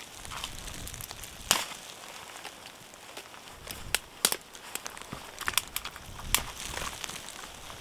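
Small branch ends being snapped by hand for fire kindling: a run of sharp, separate cracks, the loudest about a second and a half in and a cluster more in the second half, with rustling of the twigs between.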